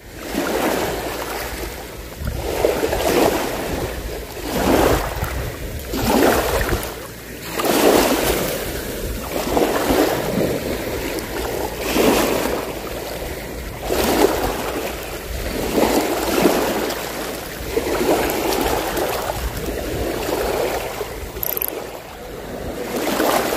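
Small waves washing in at the water's edge, a surge of water about every two seconds.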